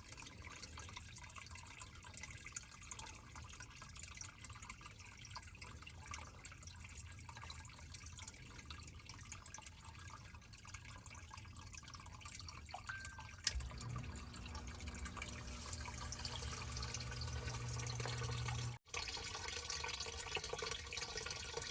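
Water trickling and dripping in a basement sump pit, with small clicks of wire handling. About thirteen seconds in a low steady hum sets in; near the end the sound drops out for an instant.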